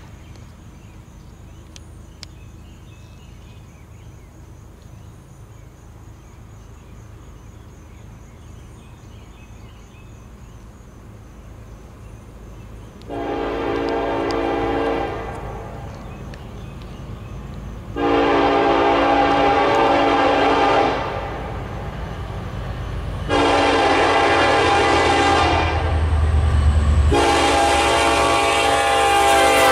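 Norfolk Southern diesel freight locomotive's air horn sounding four blasts for a grade crossing, over the faint steady ringing of the crossing bell. The locomotive's rumble grows loud near the end as it approaches.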